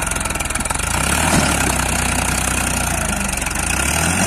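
Small battery-powered ride-on tractor running steadily with a low hum as it pulls a trolley through wet mud.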